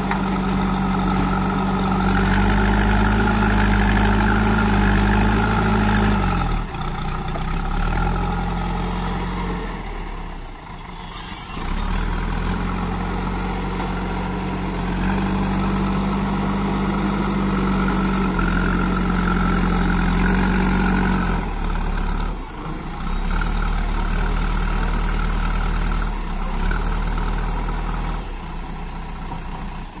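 JCB 3DX backhoe loader's diesel engine working the front loader as it pushes and lifts soil. The revs are held high twice for several seconds and drop back toward idle in between and for the last third.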